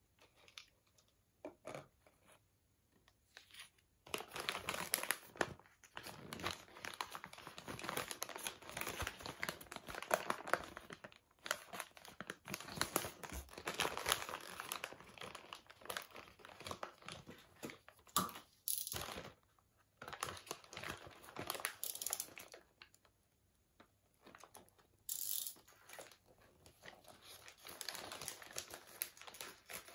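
White paper bag crinkling and rustling as it is handled and its folded top worked open, starting about four seconds in and going in stretches with short pauses. A few light taps come before it.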